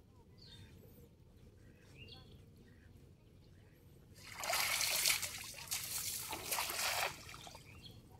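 A weighted cast net landing on pond water: a loud splashing hiss as the spread net and its rim weights strike the surface about four seconds in. It comes in two surges and lasts nearly three seconds before dying away.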